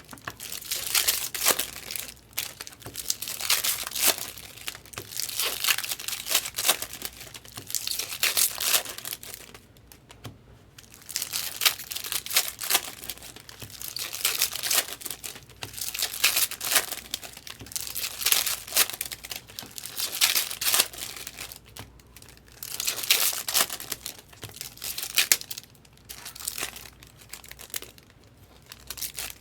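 Baseball card packs being torn open by hand, their wrappers crinkling in repeated crackly bursts with brief pauses between packs.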